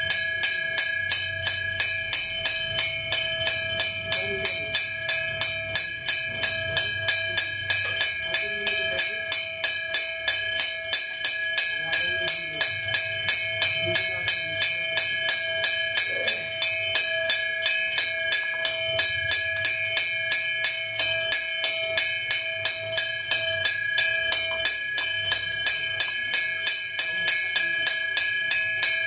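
Brass temple bell rung steadily and rapidly, about three strokes a second, its ringing tone sustained between strokes, as during temple worship of the deity.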